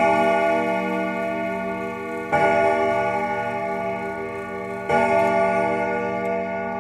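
Closing music: a bell-like chord struck three times, about two and a half seconds apart, each left to ring and slowly fade.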